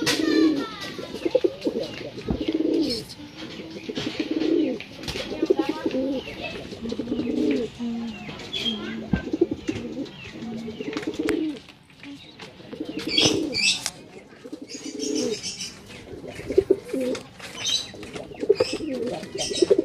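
Male domestic pigeon (a young kolongan racing cock) cooing over and over at a hen: a courtship coo, a low call about a second long repeated every second or two, the sign of a cock in breeding mood being paired.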